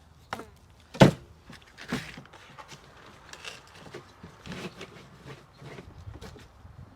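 A sharp knock about a second in, then a lighter knock and scattered small clatter and handling noises.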